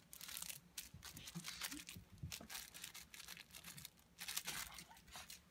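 Shih Tzu chewing and shaking a plush toy in her mouth: a quick run of soft crinkling, rustling noises, with a short lull about four seconds in.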